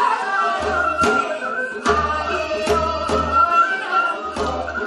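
Women singing a Korean folk song (minyo) with instrumental accompaniment and repeated low beats.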